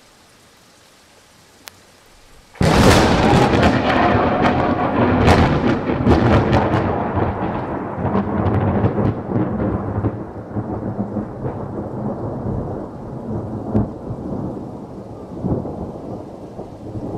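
Thunder from a lightning strike, over light rain. Faint rain hiss gives way, about two and a half seconds in, to a sudden loud crack. A long crackling rumble follows and slowly fades: the sharp crackle dies away after several seconds while the low rumble goes on.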